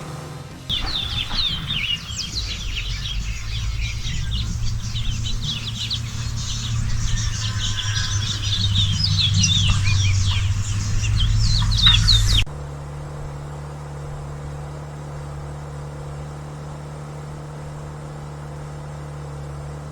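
Many birds chirping rapidly over the low rumble of a motorcycle engine. About twelve seconds in, the birdsong cuts off abruptly, leaving a steady, quieter engine hum.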